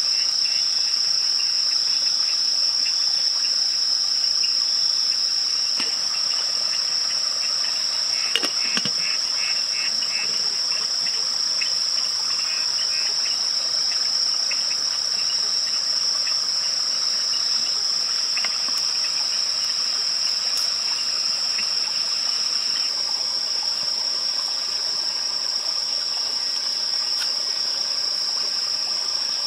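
Night chorus of crickets and other insects, a steady, unbroken high-pitched drone, with a short knock about eight seconds in.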